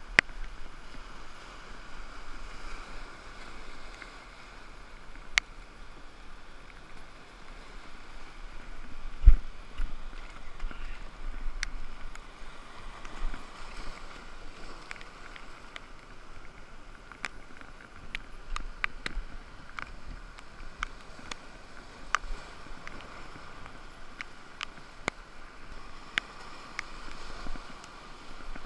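Surf washing and churning among shoreline boulders, a steady rushing noise. Scattered sharp clicks and taps run through it, and a single heavy thump comes about nine seconds in.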